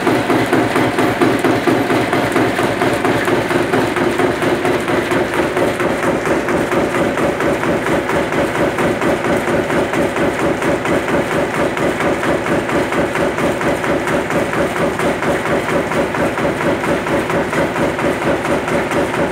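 SREE-60 sawdust briquetting machine running and pressing briquettes: a fast, even rhythm of pounding strokes over a steady hum.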